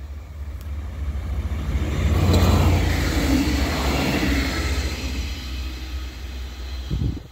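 A short train passing close by: the rumble and rush of its wheels on the rails build to a peak about two seconds in and then fade away as it goes past.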